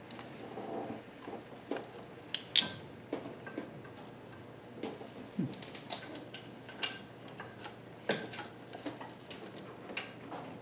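Metal tools and hardware clinking and tapping in irregular sharp knocks while a motor mount bolt is being worked back into its mount, the loudest clink about two and a half seconds in.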